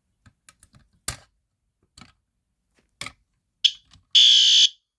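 A few clicks from the pull station being worked. About four seconds in, a System Sensor SpectrAlert Advance horn starts sounding the alarm with a loud, high-pitched blast about half a second long.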